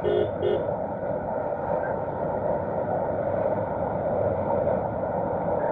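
Steady rushing noise of a moving vehicle, with two short beeps right at the start.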